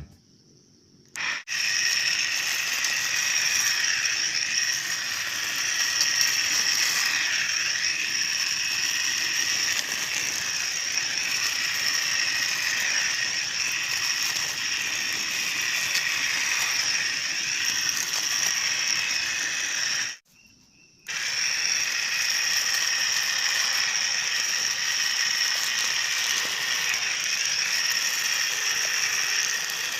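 Homemade grass cutter built from a salvaged electric motor, running steadily with a high whine. It starts about a second in and drops out briefly about twenty seconds in.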